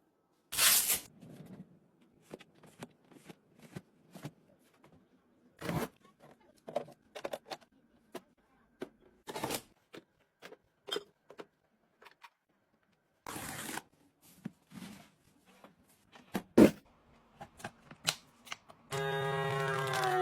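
Close-up handling of small items and packaging: scattered taps, clicks and rustles, with a few louder crinkling bursts and one sharp click. About a second before the end a steady electronic tone starts.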